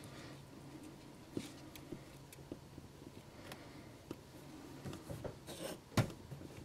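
Quiet handling of a small plastic speaker enclosure on a model locomotive's metal frame: faint scattered taps and rustles over a low steady hum, with one sharp click about six seconds in.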